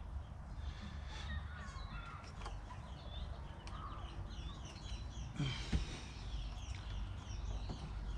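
Small birds chirping and twittering over a steady low rumble, with one sharp click a little past halfway.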